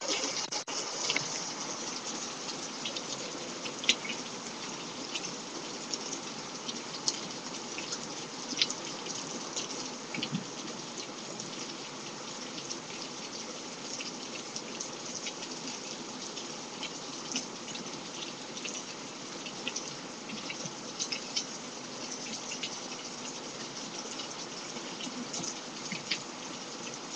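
Heavy rain falling steadily, with many scattered sharp taps of drops landing close by.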